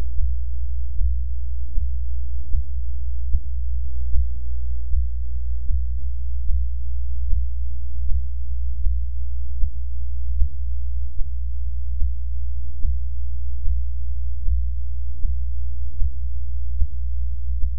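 Recorded human heartbeat, from a heart with arrhythmia, playing as a deep, steady low drone. A regular beat falls about once every 0.8 seconds.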